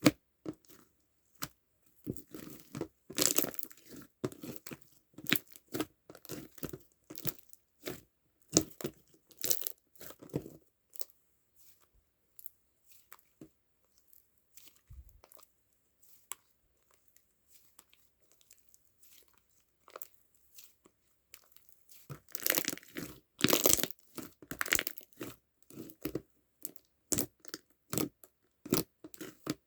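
Slime being squished and stretched by hand, making sticky crackling and popping clicks. The clicks thin out for several seconds in the middle, then come back as a dense, loud burst of crackling.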